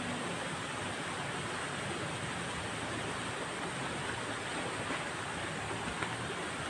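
Steady, even rushing noise of outdoor night ambience, with no distinct events standing out.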